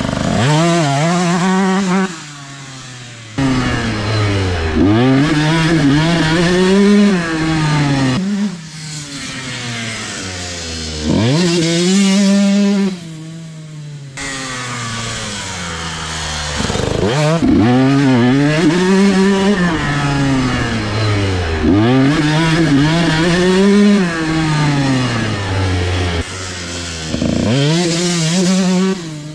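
Two-stroke motorcycle engines revving hard, the pitch climbing and falling back again and again, in several short segments that cut abruptly from one to the next.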